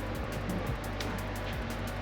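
Background music with a steady beat: a held bass line under a quick, even ticking.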